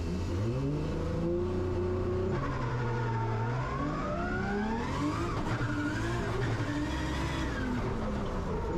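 Nissan R33 Skyline drift car's engine heard from inside the cockpit, revving hard: its pitch climbs sharply right at the start, then rises and falls several times as the throttle is worked through the drift.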